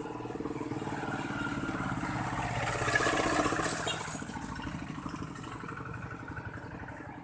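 Vehicle engine running with a fast, even pulse. It grows louder around three seconds in, then eases off.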